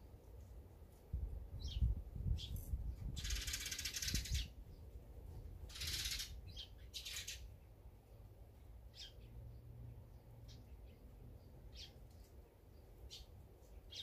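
Small songbirds giving scattered short, high chirps. About three and six seconds in come longer hissing bursts, and a low rumble runs through the first four seconds or so.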